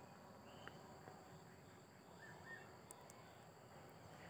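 Near silence: a faint steady high-pitched background drone, with a few faint light clicks.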